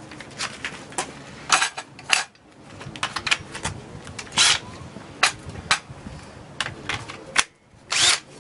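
Irregular sharp plastic clicks and knocks from handling Makita 18V cordless drills and their Li-ion battery packs: packs clicked onto and off the drills, tools picked up and set down. The drill motor is not running.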